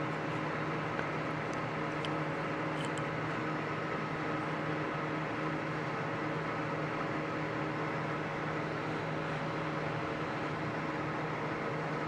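A steady mechanical hum, like a running fan or air-conditioning unit, with a few faint clicks in the first few seconds as the plastic parts of the old headlight switch are handled.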